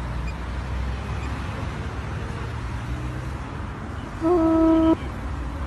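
Low steady rumble of a vehicle running. About four seconds in, a loud steady horn-like tone sounds for under a second, with a small jump in pitch at its start, then cuts off suddenly.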